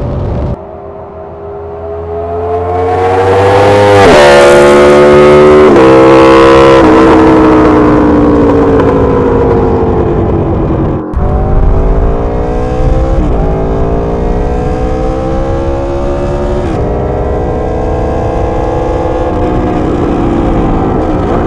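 Aprilia RSV4 1100's V4 engine through the SC-Project GP-22 titanium exhaust, accelerating hard under load. The engine climbs in revs with a quick drop at each upshift, several times. The loudest stretch is a close pass a few seconds in, and a second run of shifts starts about halfway through.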